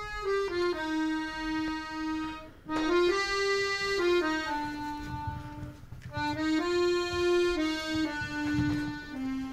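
Maugein button accordion playing a slow melody of long held notes, in short phrases with brief breaks between them.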